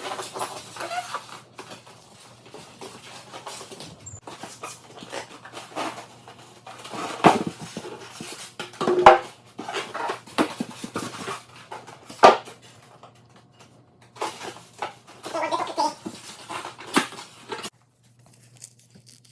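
A pet dog making brief vocal sounds among scattered clicks and clatter of things being handled, cutting off abruptly near the end.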